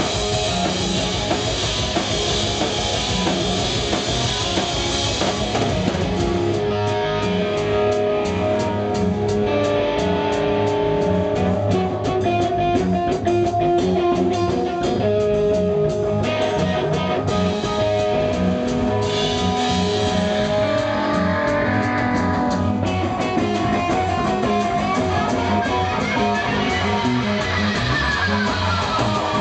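Live rock band playing: electric guitar, bass and drum kit together. A cymbal wash thins out about six seconds in, leaving held guitar notes over the drum beat, and near the end a high tone sweeps up and back down.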